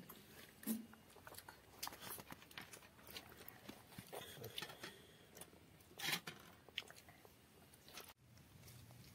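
Faint eating sounds: chewing and soft mouth clicks of people eating rice and curry by hand, with two louder clicks about a second in and about six seconds in.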